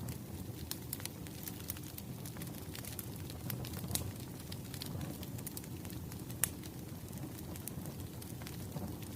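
Wood fire crackling: a steady low rumble of burning logs with irregular sharp pops and snaps, a louder pop about four seconds in and another near six and a half seconds.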